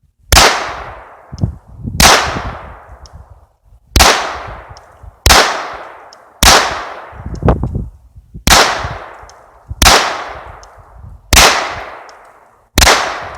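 Smith & Wesson Victory .22 LR semi-automatic pistol fired slow and steady, nine shots about one and a half to two seconds apart, each with a sharp crack and a ringing echo trailing off.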